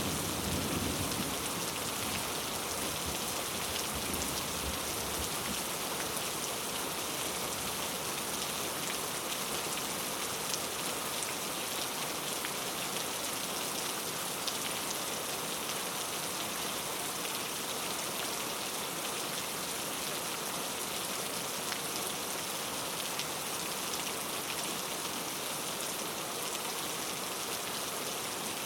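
Steady rain falling on rainforest foliage, an even hiss with a few louder single drops. A low rumble of distant thunder dies away in the first few seconds.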